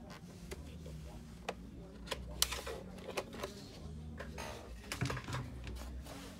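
Scattered plastic clicks and knocks as a laptop is handled and turned over, over a steady low hum.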